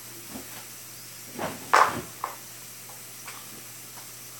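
A few knocks and clatters of kitchen items being handled and put away, the loudest a sharp knock just under two seconds in, over a faint steady hum.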